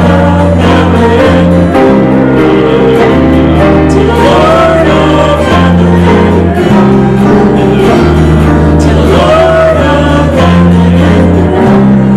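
Live worship music: a band holding sustained low chords that change every second or two, with a sung melody above them.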